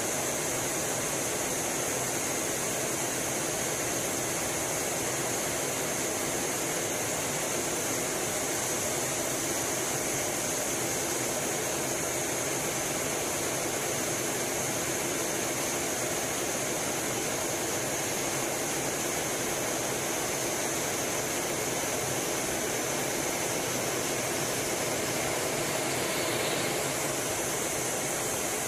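Steady rushing noise of airflow and engines heard inside the cockpit of an F/A-18 Hornet fighter jet in flight, even and unchanging, with a strong high hiss.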